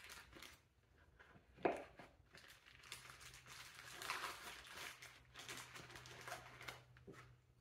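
Faint rustling and crinkling as small tools and their wrapping are handled in a toolkit case, with one sharp knock about one and a half seconds in.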